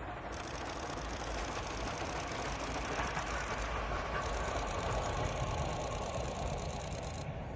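FNM 200 05 steam locomotive passing at speed with a rapid rhythmic beat, hauling its vintage coaches. It grows louder to a peak about midway through as it goes by, then eases off.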